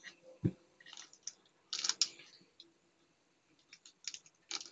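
Thin clear plastic toy bag crinkling and clicking as fingers handle and pull it open, in short scattered bursts, with a soft thump about half a second in.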